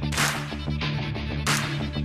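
Electronic background music: a steady, sustained bass line with a hissing swell that comes twice.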